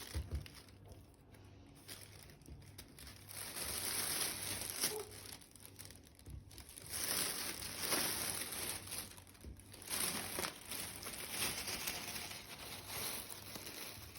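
Crinkling and rustling of plastic packaging being handled, in several bouts of a second or two.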